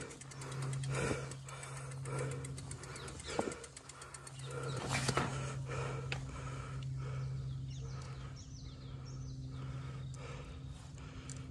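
Cyclist breathing hard while pedalling uphill, a heavy breath about once a second, over a steady low hum. Faint bird chirps come in during the second half.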